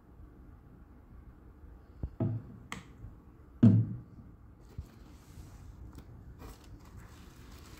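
A plastic shampoo bottle knocked and set down on a wooden tabletop: a few light knocks a little after 2 s, then one louder thump just before 4 s. Faint rustling and small clicks follow as hands move in the wood-wool packing filler.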